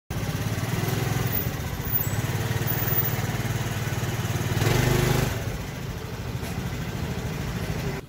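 A small engine running close by with a rapid, even pulse, growing louder for a moment around five seconds in and then easing off.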